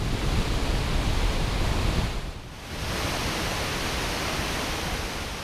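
Steady rush of a large waterfall's falling water, a full roar of noise with a deep low end. About two and a half seconds in it dips briefly and comes back a little quieter and hissier.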